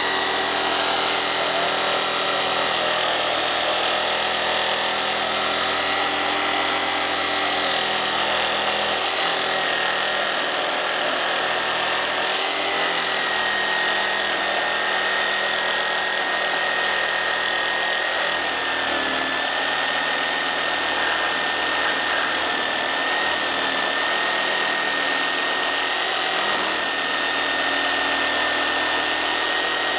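Corded jigsaw cutting through a wooden beam, its motor running continuously with a steady high whine that dips slightly in pitch about two-thirds of the way through.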